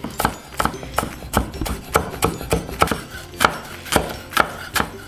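Chef's knife chopping green onions on a wooden cutting board: a steady run of sharp knife strikes, about three a second.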